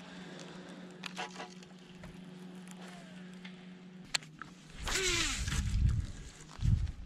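Baitcasting reel's spool whirring as line pays out on a cast, its pitch falling as the spool slows, then a low thump. Before the cast there are light clicks from handling the rod and reel over a steady low hum.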